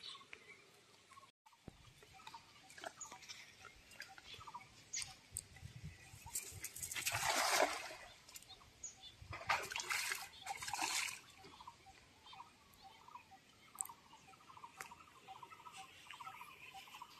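A cast net swishing out and landing on pond water with a hissing splash about halfway through, followed by more splashing a couple of seconds later. Faint repeated chirping calls are heard near the end.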